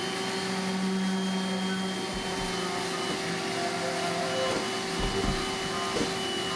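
Power sander and its dust-extraction vacuum running steadily, a motor hum over a hiss.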